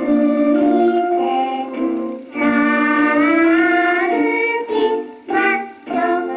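A children's song sung to piano accompaniment, played back from a 1960s flexi disc (sonosheet) on a turntable; the sound is thin, with no bass.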